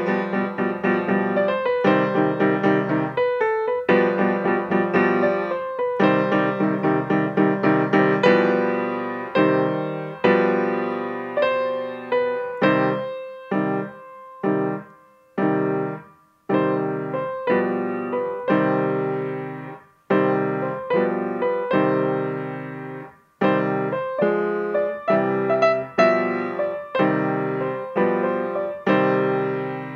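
Solo grand piano played: a steady run of struck chords and notes, stopping briefly a few times in the middle so the notes die away before it resumes.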